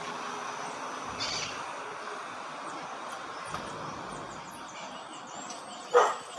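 Black-tufted marmosets giving a run of short, very high-pitched chirps and thin whistles over a steady background hiss. A dog barks once near the end.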